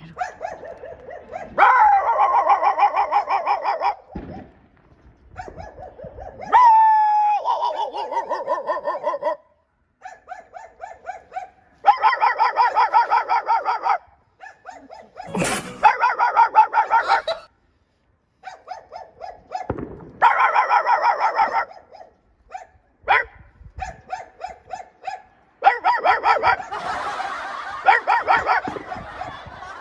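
A dog barking in quick runs of barks, in several bursts of one to four seconds with short pauses between them, with a brief whine-like gliding call about seven seconds in.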